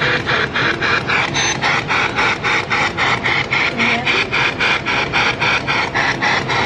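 Spirit box radio sweeping through stations: a rapid, even chopping of static bursts, about five or six a second.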